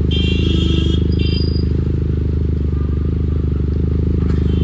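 SRK 400 motorcycle's engine and exhaust running at a steady, unchanging speed, a deep pulsing exhaust note.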